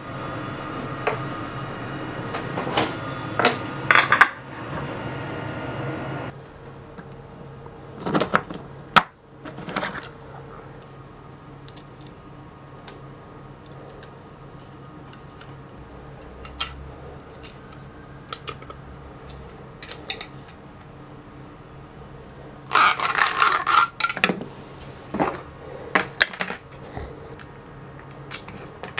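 Small parts being handled and fitted by hand: scattered clicks, taps and clinks of screws, metal brackets, fittings and MDF plate pieces, with a dense clattering rattle about 23 seconds in. For the first six seconds a steady background hum runs under the taps, then stops suddenly.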